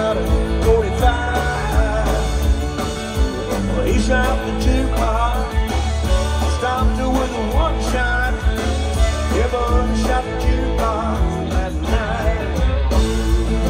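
Live country band playing loud through a PA: drums, bass, guitars and a wavering lead melody line, heard from the audience.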